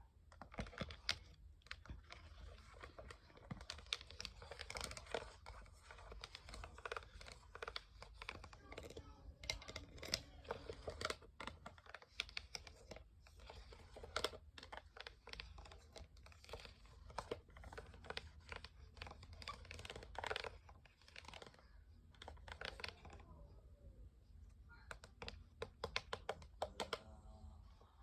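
Rapid, irregular tapping and clicking like fingers on keys or hard plastic, mixed with scratching and crinkling, made close to the microphone as ASMR trigger sounds. It eases off briefly about three quarters of the way through, then picks up again.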